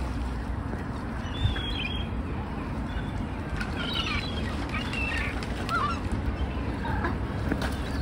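Water birds, gulls among them, giving several short, scattered calls over a steady low rumble.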